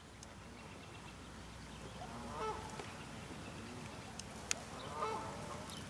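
Geese honking in two bouts of calls, about two and a half seconds apart, with a sharp click shortly before the second bout.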